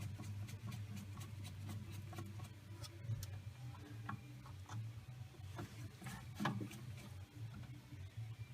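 A screwdriver turning small screws out of a steering wheel hub: a run of light metallic clicks and scrapes, thickest in the first few seconds, with a couple of sharper clicks later. A low steady hum runs underneath.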